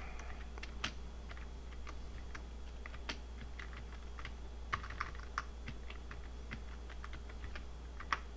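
Computer keyboard being typed on: irregular key clicks, some in quick runs, over a steady low hum.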